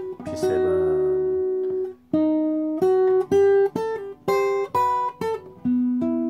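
Steel-string acoustic guitar played fingerstyle: a chord about half a second in rings for over a second, then a run of single plucked notes, ending on a held low note.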